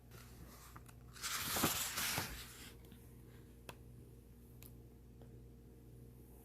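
A page of a picture book being turned: a papery rustle and swish a little over a second in, lasting about a second and a half, followed by a couple of faint clicks.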